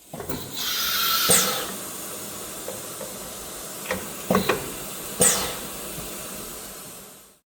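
Compressed air hissing from the Heliner H-1228AD CNC router's spindle as its pneumatic tool release is held open to unclamp the tool, louder at first, then steady, fading away near the end. Several clicks and knocks of the tool holder are heard in the spindle, the loudest about a second in and about five seconds in, each with a short falling whistle.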